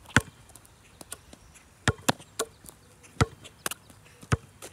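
A basketball bouncing on an asphalt driveway as it is dribbled: about eight sharp smacks at uneven spacing, with gaps of up to a second and a half.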